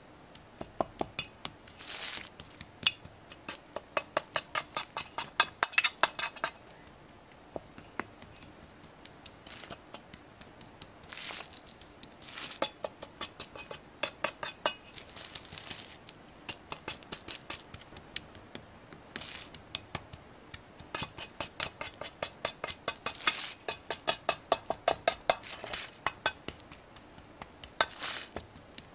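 Metal spoon stirring biscuit-crumb crust mix in a metal baking pan. It makes quick runs of clinks and scrapes against the pan, several a second, in bursts with short pauses.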